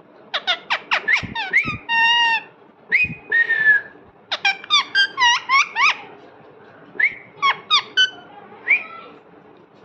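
Pet parrot calling in quick, high whistles and squeaks that sweep up and down in pitch, in several bursts with short pauses between.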